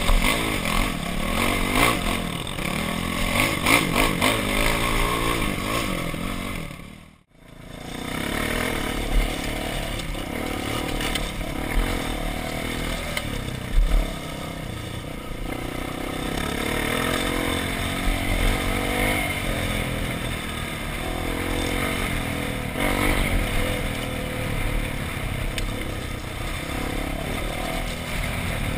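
Dirt bike engine running and revving under the rider, with rocks and gravel clattering beneath the tyres. The sound drops out briefly about seven seconds in, then the engine carries on at a steadier pace.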